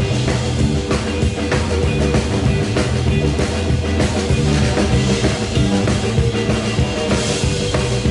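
Live blues band playing an instrumental stretch between sung lines, with guitar over a steady drum-kit beat.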